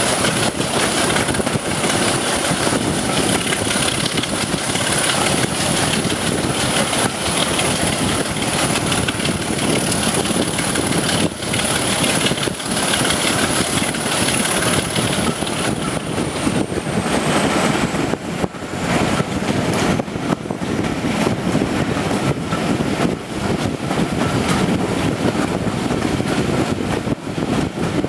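BR Class 26 diesel-electric locomotive's six-cylinder Sulzer engine running steadily at the head of the train, heard from an open coach window with wind rushing past the microphone. A thin high whine drops slightly in pitch about sixteen seconds in.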